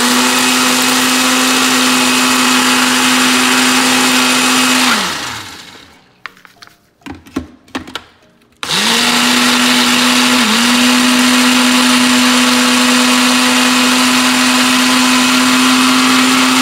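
Older Ninja blender grinding boiled eggshells with spinach, red bell pepper and water. The motor runs at a steady pitch for about five seconds and winds down, with a few knocks and clicks in the pause. It starts again about three seconds later and runs on steadily.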